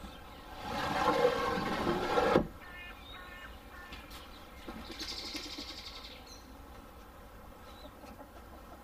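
Chicken coop's pop-hole door being pulled up on its cord, scraping in its runners for about two seconds and stopping abruptly. Faint bird calls follow.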